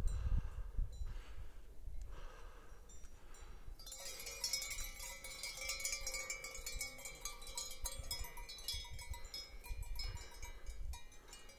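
Yak neck bells clanking and jingling as the herd moves, setting in about four seconds in with a dense ringing that goes on throughout; before that only a low rumble.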